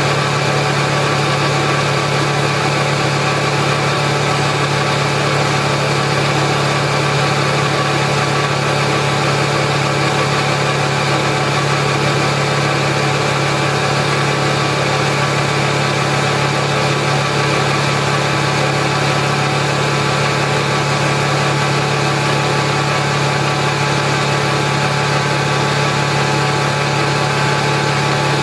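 Atlas Copco GX7FF 10 hp rotary screw air compressor running steadily: a constant hum with a strong low tone and a hiss above it.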